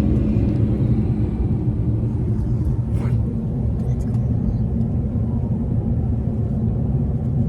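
Steady low engine rumble heard inside the cabin of a small passenger plane.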